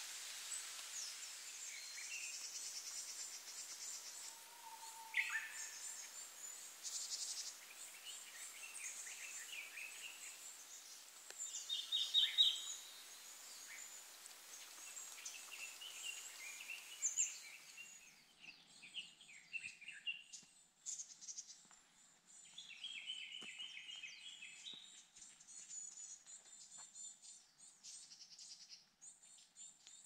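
Small woodland songbirds calling: many short, high chips and thin trills from several birds, the loudest cluster about twelve seconds in. For the first part a steady hiss lies under the calls, and it stops at a cut a little past halfway.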